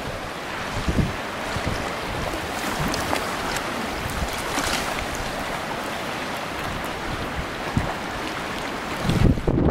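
Wind blowing against the microphone over the steady wash of waves, with irregular low buffeting and a louder gust near the end.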